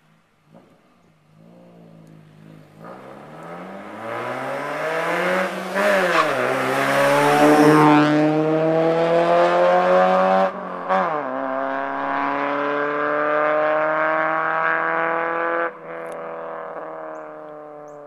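2003 Honda Civic EX's D17A2 1.7-litre four-cylinder, running an Invidia catback, a DC 4-2-1 race header with no catalytic converter and an AEM cold air intake, accelerating hard. The pitch climbs through the gears, drops at each of two upshifts (about 6 and 11 seconds in) and climbs again, then the sound falls somewhat quieter near the end.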